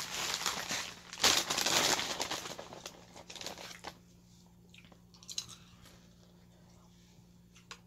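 Crunchy snack being eaten close to the microphone: dense crunching and crinkling, loudest in the first two and a half seconds and dying away by about four seconds in, followed by a few faint clicks.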